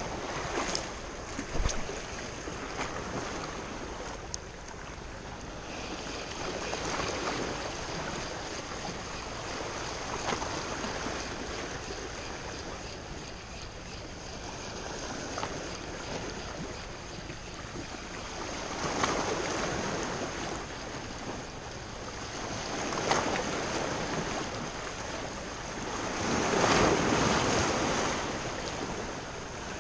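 Sea waves surging and washing against the shore in swells every few seconds, the largest near the end, with wind buffeting the microphone. A few sharp clicks sound about a second or two in.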